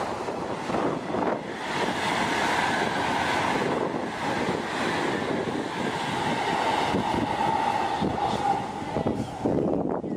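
Taiwan High Speed Rail 700T train running past at speed: a steady rushing noise with a faint whine in it and wind on the microphone. It breaks off briefly near the end.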